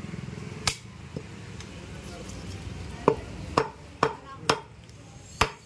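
Butcher's cleaver chopping mutton: about six sharp chops, one about a second in and most of the rest in the second half at roughly two a second.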